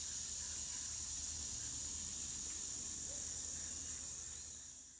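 Steady high-pitched chorus of insects on an evening in the woods, fading out near the end.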